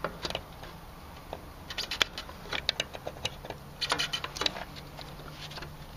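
Small sharp clicks and ticks in a few quick clusters, with quiet gaps between them, as gloved hands push wire spade connectors onto the terminals of an Emerson SureSwitch in an air-conditioner's condensing unit. The loudest click falls about two seconds in.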